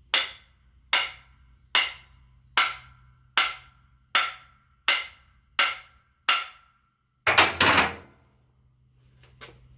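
Hammer blows on the butt end of a wooden handle, driving it up into a sledgehammer's steel head to seat it: nine even strikes about one every 0.8 s, each with a brief metallic ring, then a quick flurry of louder blows near the end.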